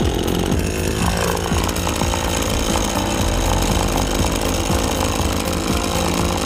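Two-stroke engine of a Husqvarna 525PT5S telescopic pole saw running steadily, with a slight change in its sound about a second in.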